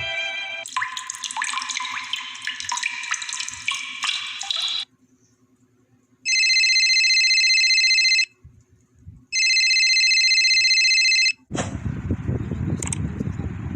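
A string of short sound effects: about four seconds of dense, glittering high-pitched sound, then two identical steady electronic rings of about two seconds each, a second apart, like a telephone ringing, and near the end a noisy rumble.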